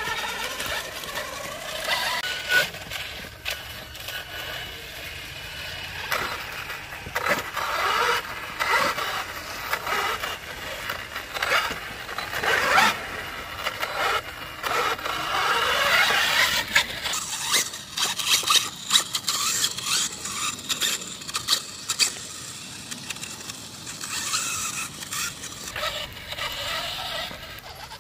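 Electric motor and gears of an RC scale trail truck whining, rising and falling in pitch as the throttle changes, with scrapes and sharp clicks from the truck working over rough ground.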